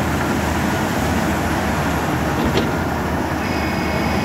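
BEML BE1000-1 hydraulic front shovel running under load as its bucket dumps broken rock into a dump truck: a steady, dense machine noise. There is a single sharp click about two and a half seconds in, and a steady high whine joins near the end.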